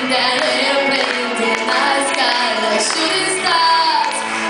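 A girl singing a pop song live into a handheld microphone over a recorded backing track.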